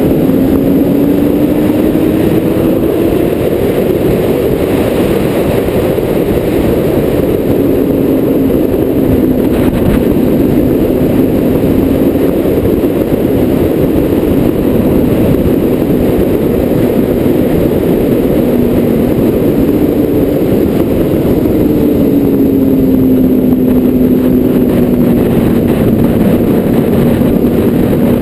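Vehicle driving at speed: a steady heavy rumble of road and wind noise with an engine note that rises and falls a few times, with a clear rise then fall about 20 seconds in.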